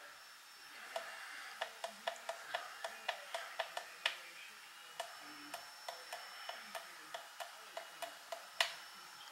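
Faint, rapid clicking, several clicks a second and unevenly spaced, from the small switch lever of a FrSky X20 RC transmitter being flicked again and again to switch a model ship's lights off channel by channel.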